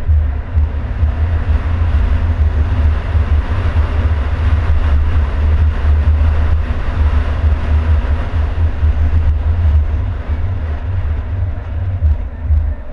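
Car driving slowly: a steady low rumble of engine and road noise.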